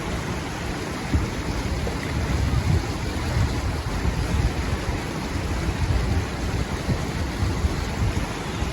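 Rushing whitewater of a river rapid, a steady roar of water with an uneven low rumble beneath it.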